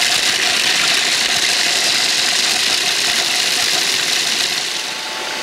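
Food processor running, its blade grinding pieces of bittersweet chocolate into fine particles: a steady whirring motor under a dense gritty rattle of chocolate against the blade and bowl, easing slightly near the end.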